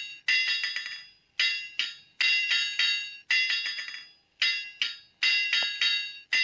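Blacksmith's hammer-on-anvil sound effect played through a small loudspeaker by a homemade circuit for a model forge: metallic ringing strikes in a repeating pattern, two single blows followed by quick runs of several.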